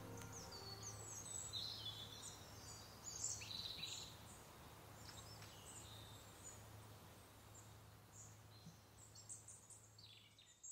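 Faint birds chirping and twittering in scattered short calls, busiest a few seconds in, over a low steady hum, the whole fading away toward the end.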